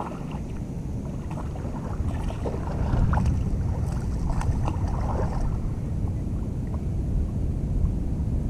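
Wind buffeting the microphone, with a run of splashes in the first five seconds or so as a small hooked mangrove jack thrashes at the surface and is landed by hand.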